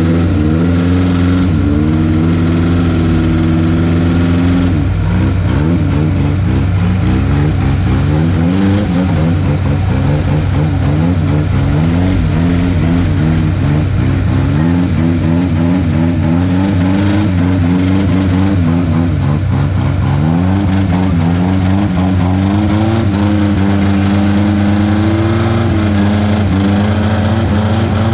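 Off-road vehicle engine under load, its revs held steady at first, then rising and falling again and again as the throttle is worked, then steady again near the end.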